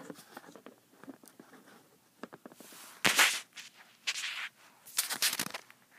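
Handling noise close to the microphone: scattered small clicks and taps, then three short bursts of rustling or scraping, about three, four and five seconds in.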